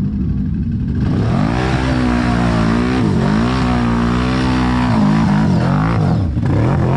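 ATV engine revving hard: the revs climb, dip briefly, hold high, then drop and pick up again near the end, with a steady rushing noise over it.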